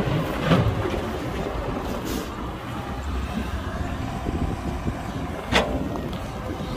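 Excavator's diesel engine running steadily under load, with two sharp knocks of the machine at work, about half a second in and about five and a half seconds in.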